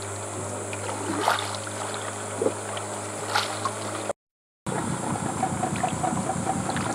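Steady low hum of an idling boat engine, with a constant high hiss above it and a few faint brief calls. An edit just after four seconds cuts the sound out for a moment. A different background then follows, with a fast run of short repeated notes.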